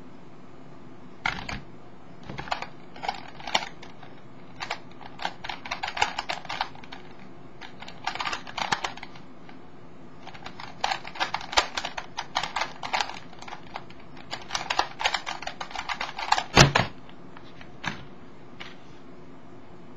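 A Skewb twisty puzzle being turned fast in a speedsolve: quick runs of plastic clicks from its pieces rotating, broken by short pauses. The turning ends with a single loud thump as the solve finishes and the puzzle is put down.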